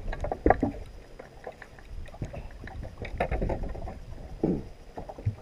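Water lapping against a fishing boat's hull with wind on the microphone, a low rumble loudest at the start, broken by a few small knocks and short faint sounds.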